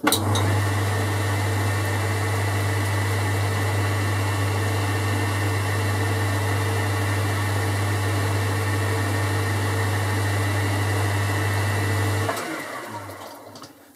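Boxford metal lathe switched on and running steadily with a low hum while turning a lead on a small aluminium stud; it is switched off about twelve seconds in and runs down.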